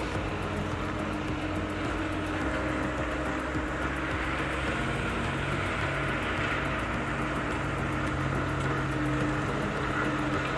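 Steady street noise of motor vehicle engines and traffic, a continuous low hum without distinct events.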